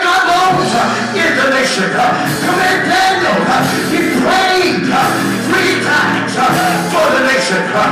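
Loud gospel church music: a band playing with a voice singing over it.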